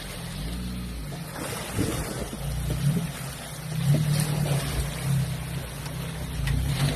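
Suzuki Vitara 4x4's engine running at low revs as it crawls through a river, with water rushing and splashing around it and a few light knocks.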